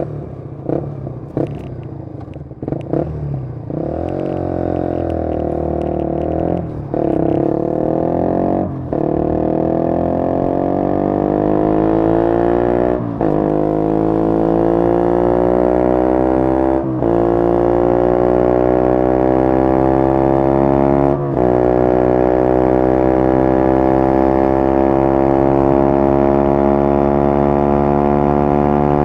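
Suzuki GSX-R150 single-cylinder engine breathing through a Yoshimura exhaust, pulling away and accelerating through the gears. The pitch climbs between five brief breaks at the upshifts, then settles into a steady cruise.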